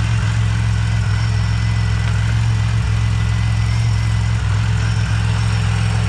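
Supercharged 3800 Series II (L67) 3.8 L V6 idling steadily. Its balance shaft is out of time, which the owners blame for the rattle and shaking in the engine.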